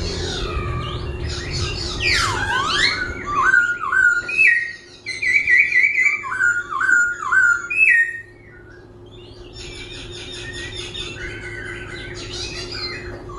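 Laughingthrush (khướu) singing a loud, varied run of whistled phrases that keep changing: a long swooping note, then a string of short rising-and-falling notes, turning softer after about eight seconds.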